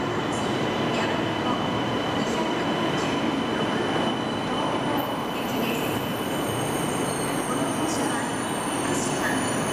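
E2 series Shinkansen train running: a steady rumble and hiss with high-pitched squealing tones coming in about halfway, and a few faint clicks.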